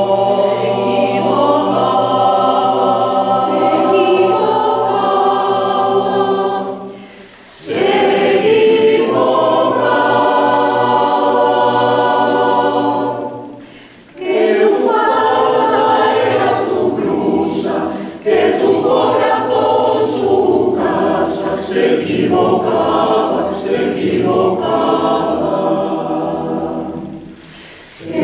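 A choir singing in long sustained phrases, several voice parts together, with short breaks between phrases about a quarter, half and near the end of the way through.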